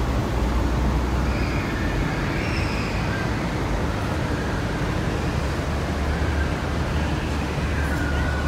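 Steady low rumble of city traffic, with no clear single event standing out.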